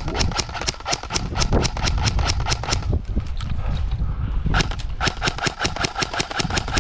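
Airsoft gun firing on full auto: a fast, even string of snapping shots, about ten a second. The string stops about three seconds in and starts again as a second long burst about a second and a half later.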